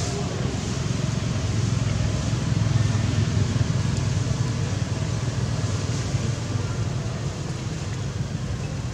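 Steady low rumbling background noise outdoors, swelling a little around the middle, with a fainter hiss above it.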